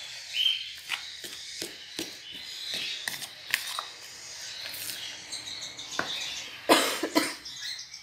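A fork stirring a crumbly egg-food mix of farinhada, chopped boiled egg and corn in a pan, with quick scraping clicks. A woman with a cold coughs twice near the end, the loudest sound, and a bird gives a short chirp about half a second in.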